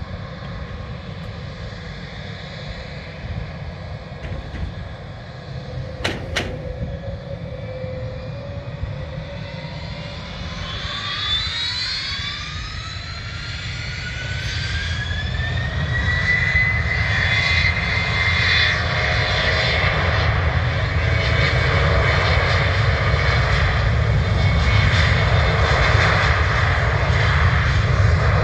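Boeing 717's twin rear-mounted Rolls-Royce BR715 turbofans spooling up for takeoff. A whine rises in pitch from about ten seconds in, and the engines then run steady and louder at takeoff power as the roll begins.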